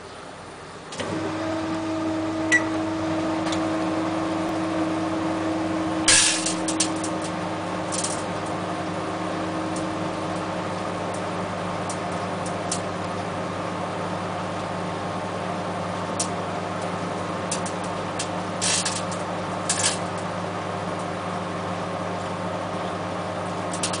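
Sauter Deluxe 850 microwave oven switching on about a second in and running with a steady hum. A CD inside is arcing, its thin metal layer giving sharp snapping crackles several times.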